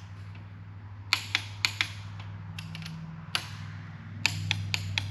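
Click-type torque wrench tightening the connecting-rod bolts of a Mopar big-block: sharp metallic clicks in short clusters, a few a second, over a steady low hum.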